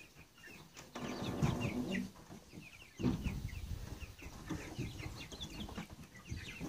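Young chickens, about seven weeks old, calling inside the coop with many short, high peeps in quick succession.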